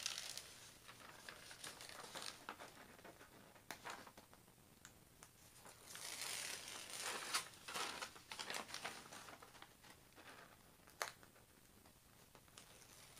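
Plastic cover film on a diamond painting canvas crinkling and peeling off the sticky canvas as it is pulled back and handled, in faint, uneven rustles. The rustling is busiest a little past the middle, and a sharp click comes about eleven seconds in.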